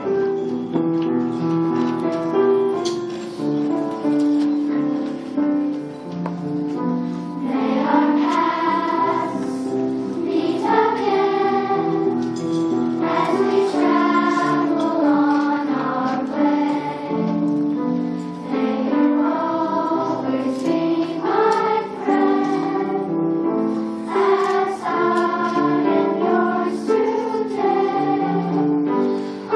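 A children's chorus of fifth graders singing a song together, many young voices in unison.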